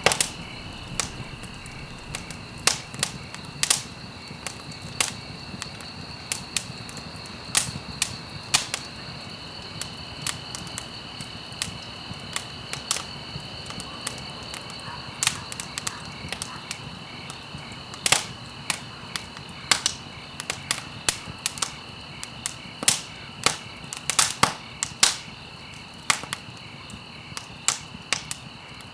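Wood fire crackling in a fireplace: irregular sharp pops and snaps over a low, steady rush of burning, with a faint steady high whine underneath.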